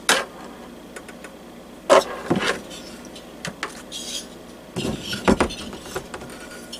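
Scattered clicks and knocks of hard plastic and metal parts and tools being handled during a diesel heater teardown, with a quick cluster of knocks about five seconds in.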